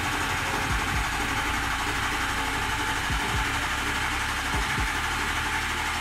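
Ford 6.0L Power Stroke V8 diesel being cranked on the starter, turning over steadily without firing. The no-start comes from injection control pressure staying around 300 psi, short of the 500 psi needed to fire the injectors, which the mechanic takes for a leak in the high-pressure oil system.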